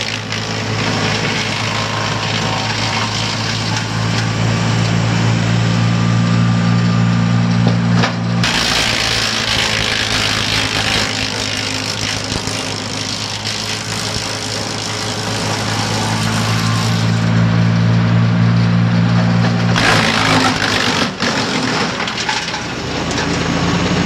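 Vermeer BC625A wood chipper running on its 25 hp Kohler Command Pro gas engine while wood is fed through it, with crackling and splintering over a steady engine hum. The chipping grows heavier about a third of the way in and again near the end, as the engine note shifts under the load.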